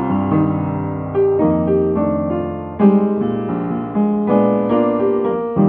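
A 1971 Yamaha P22 studio upright piano being played: a slow passage of chords with a melody on top, each chord ringing on and fading before the next is struck.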